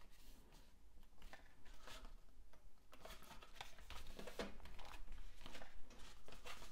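Hands handling and pressing cardstock onto a glued card: light paper rustling and small taps, busier from about three seconds in.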